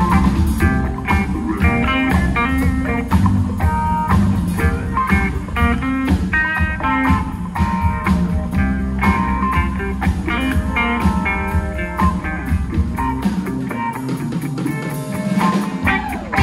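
Live band playing bluesy rock: guitar lines over drums and a low bass part. The bottom end drops out for a couple of seconds near the end before the full band comes back in.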